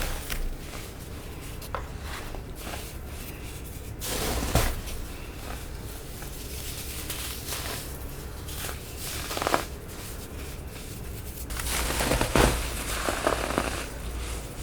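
Soft, snow-like crunches of packed baking soda being crushed, in a few separate bursts: one about four seconds in, another past the middle, and a longer run of crunching near the end, with small crackles between.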